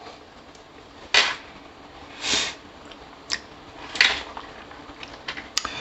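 Hands handling a smartphone: a few short rustles about a second apart, then soft clicks near the end.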